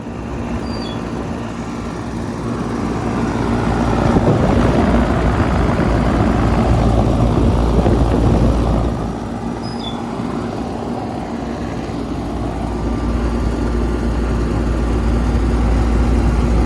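Heil 5000 central air conditioner condensing unit running: a steady hum under the noise of the condenser fan, louder from about four seconds in to about nine seconds, and again near the end.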